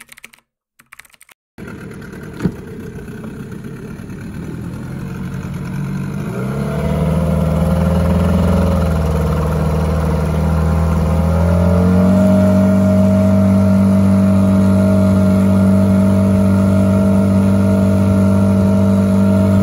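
Hangkai 12hp two-stroke outboard engine running. Its note builds and rises in pitch over the first several seconds, steps up again about halfway through, then holds a steady, loud drone. There is a single click near the start.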